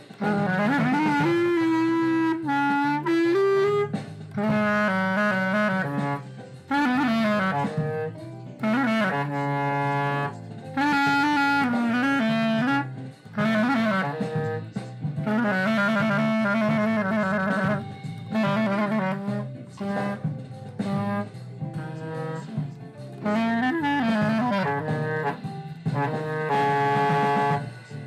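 Glory GLY-PBK B-flat clarinet played with a generic hard-rubber mouthpiece: a melody of held and moving notes in several phrases, broken by short breaths.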